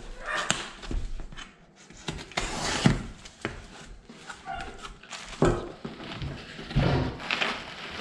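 A utility knife slitting the packing tape on a cardboard box, followed by a run of scraping and tearing strokes as the cardboard flaps are pulled open.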